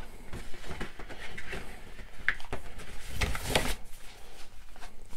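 Thin cardboard wraparound being handled and slid around a hardcover book: cardboard rustling and scraping against the book, loudest about three seconds in.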